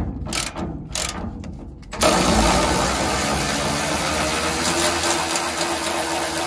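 Cordless electric ratchet spinning a socket on a leaf-spring bolt to loosen it. A few short spurts of the motor come first, then about two seconds in the motor runs steadily.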